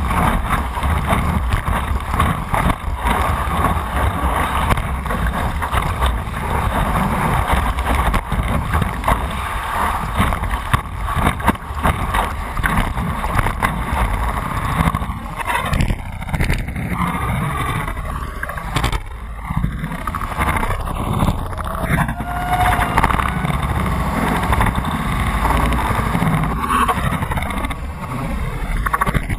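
Water rushing and splashing along a stand-up paddleboard as it rides a breaking wave, with wind buffeting the board-mounted camera's microphone; a steady, dense rush that gets more uneven in the second half.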